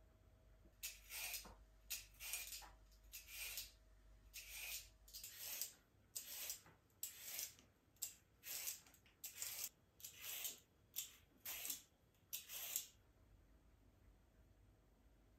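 A hand vegetable peeler scraping down a carrot in a run of short, even strokes, about two a second, which stop near the end.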